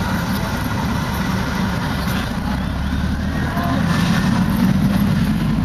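Outdoor street ambience: a steady low rumble with faint voices from people walking past.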